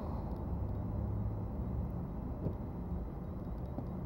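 Low steady background rumble, with a faint knock about two and a half seconds in.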